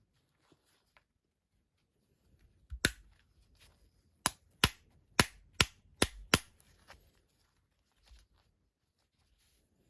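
Sharp knocks, most likely taps seating new bearings in an LG dryer's drum roller: one knock, then after a pause of over a second six more at about two a second.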